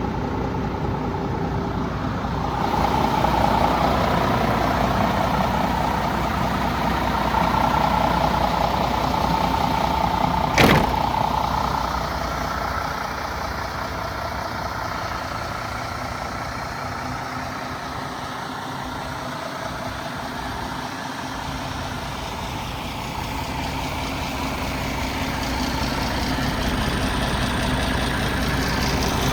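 MAN TGX 18.470 truck's 12.4-litre inline-six diesel idling, its level swelling and easing slowly. A single sharp click sounds about ten and a half seconds in.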